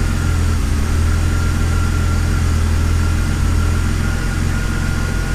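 BMW E46 330ci's 3.0-litre inline-six idling steadily, with a faint steady whine above the engine note; it sounds pretty good.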